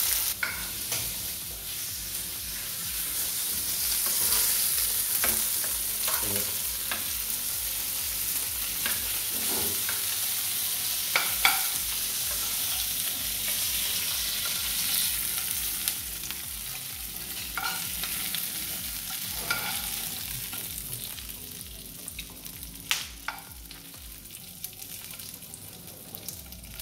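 Turmeric-marinated octopus pieces sizzling in hot olive oil in a frying pan, with a metal spoon clinking and scraping against the pan now and then. The sizzle dies down over the last few seconds.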